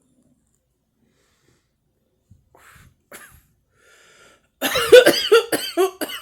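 A person coughing hard: a quick run of about five coughs, starting some four and a half seconds in, after a few faint breaths.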